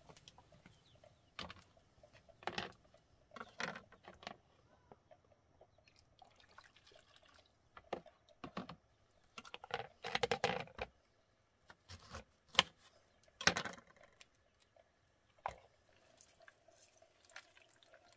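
Scattered clatters of plastic bowls and a knife handled on a bamboo table, mixed with short splashes and pours of water; the busiest stretch comes about ten seconds in, followed by a few sharp clicks.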